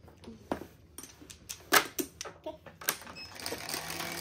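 Mahjong tiles clacking against each other and the table in separate sharp knocks, the loudest a little under two seconds in. A denser clatter of tiles follows near the end.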